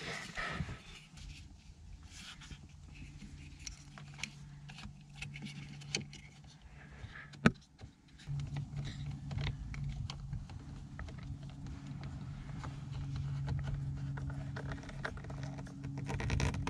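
Small plastic clicks and handling noises from fitting a C7 Corvette Z06 steering-wheel rev-match paddle shifter and its electrical connector, with one sharp click a little past the middle. From about halfway a steady low hum comes in underneath.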